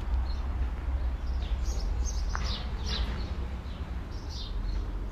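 Small birds chirping and singing in short, scattered phrases over a steady low rumble.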